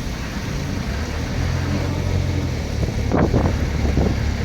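Motor vehicle's engine running steadily during a ride, a low hum under road and wind noise, with a brief louder burst about three seconds in.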